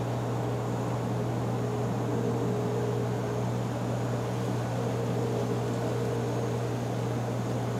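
Steady low mechanical hum under a constant hiss, unchanging throughout.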